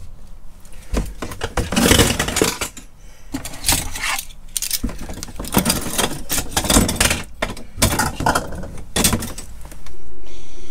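Metal pots, pans, lids and utensils clattering and knocking as they are lifted out of a stainless steel carousel cupboard and dropped into a plastic storage crate, in an irregular run of clanks and rattles. Near the end a louder, steady ringing tone sets in.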